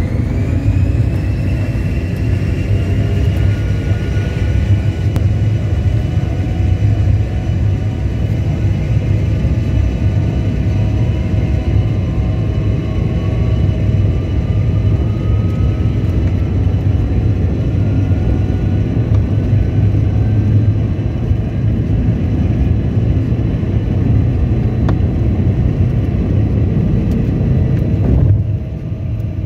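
Cabin noise of a Bombardier CRJ-900 taxiing: a steady low rumble with the whine of its rear-mounted GE CF34 turbofans, thin tones that rise slowly in pitch. The noise drops briefly near the end.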